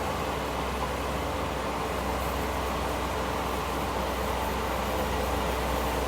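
Heavy diesel engine of earthmoving equipment running steadily, a low drone that gets slightly stronger about two seconds in.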